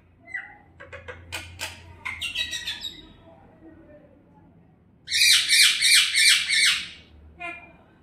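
Common myna calling: a few clicks and chattering notes, then about five seconds in a loud run of harsh, rasping notes lasting about two seconds.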